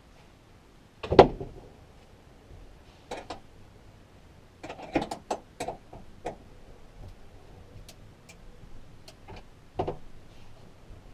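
Scattered knocks and clicks of wooden boards, bolts and hand tools being handled while a board is mounted to the van wall, with a heavier thump about a second in and another near the end.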